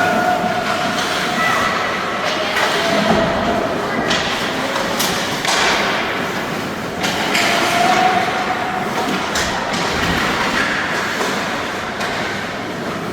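Ongoing noise of youth ice hockey play: a steady scraping rush of skates on the ice, with scattered knocks of sticks, puck and boards and a few short shouts.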